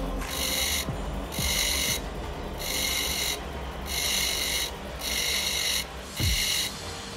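Black amethyst (kecubung wulung) stone pressed against a wet spinning grinding wheel in short strokes about once a second, each stroke a high rasp, over the steady hum of the grinder motor.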